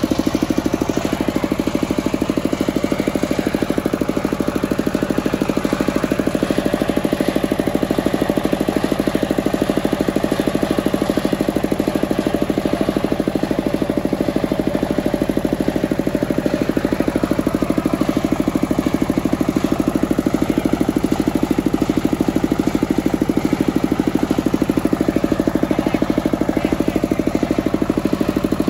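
Stationary single-cylinder diesel engine running steadily to drive a sawmill's circular saw, with an even, rapid beat from its firing.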